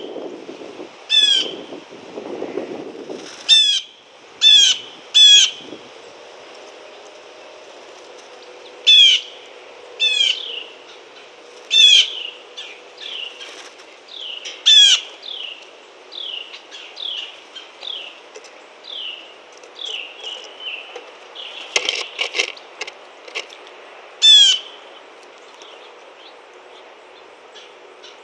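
Blue jay calling: about nine loud, short calls spaced a second or more apart, with a run of quicker, softer notes in the middle. A brief flutter of wings comes about three quarters of the way through.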